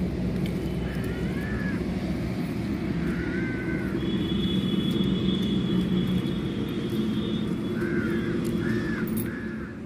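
Steady low drone of a distant engine, with crows cawing: once about a second in, again about three seconds in, and three times in quick succession near the end.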